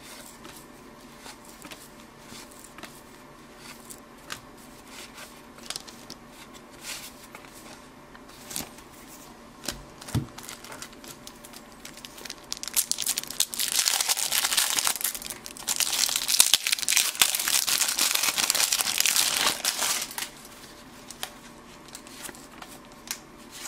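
Clear cellophane wrapper of a 1983 Topps baseball card cello pack crinkling loudly as it is pulled open, from about 13 to 20 seconds in. Before and after, soft clicks of cardboard cards being handled and flipped.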